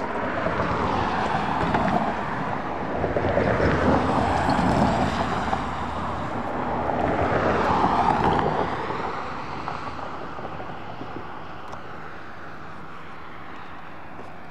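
Cars driving past on the road, one after another, their tyre and engine noise swelling and fading three times. The last and loudest, an SUV crossing the tracks, passes about eight seconds in, then only faint steady road noise is left.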